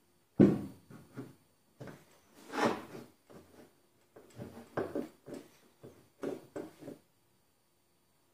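Short, irregular knocks and scrapes on a Nissan Teana's sheet-metal door panel during paintless dent repair, the loudest a sharp knock about half a second in, with a cluster of smaller ones later.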